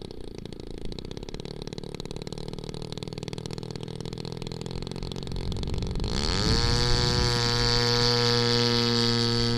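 Radio-controlled model Meta Sokol's engine idling steadily. About six seconds in, the throttle opens and the pitch rises quickly to a louder, steady high-power note, as for the takeoff run.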